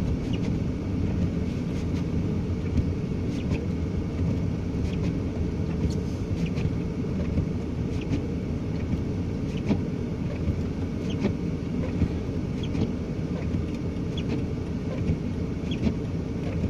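Car engine and tyre noise heard from inside the cabin while driving on a snow-packed road: a steady low rumble with scattered faint clicks.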